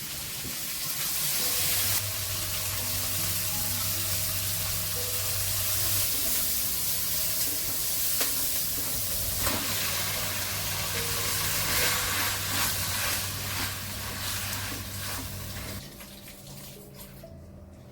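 Onions sizzling as they fry in mustard oil with cumin seeds and bay leaves in a pan: a steady hiss that dies down near the end.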